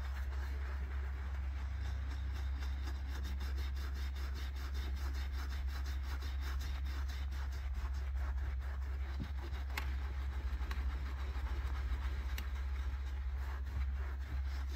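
A handheld detailing brush scrubbing foamy cleaner into a leather armrest with rapid back-and-forth strokes, the bristles rasping steadily, over a steady low hum.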